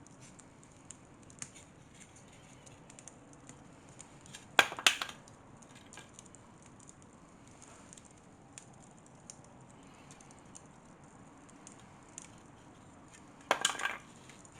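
Wood fire burning a box of sawdust, crackling with scattered small ticks and pops. Two louder clusters of sharp cracks come about four and a half seconds in and near the end.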